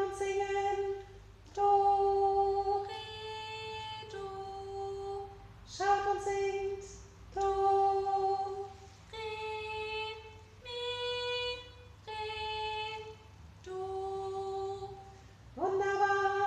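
A woman singing unaccompanied, as a singing-class exercise: held notes of about a second each that step up and down among the first three tones of a scale, mostly coming back to the lowest one.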